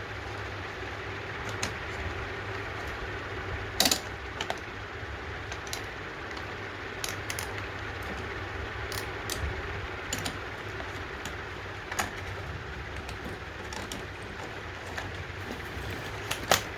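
Scattered light metallic clinks and taps, as of hand tools and small carburetor parts being handled, over a steady low hum.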